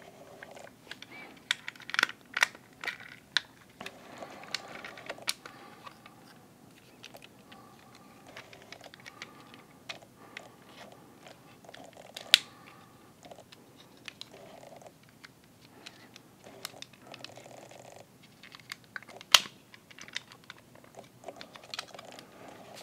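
Small plastic clicks and snaps from a Transformers Masterpiece MP-54 Reboost figure in car mode as its doors and panels are opened and its parts worked, with two louder clicks, one about halfway and one near the end, and patches of soft rustling between.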